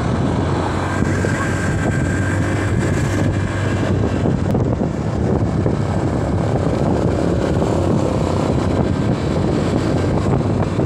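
Motorcycle under way: a steady rush of wind and road noise on the microphone, with the engine's low steady hum underneath.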